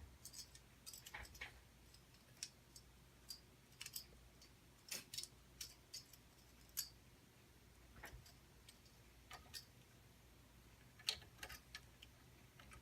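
Faint, irregular light clicks and taps of hands handling computer parts and cables, over a faint low hum.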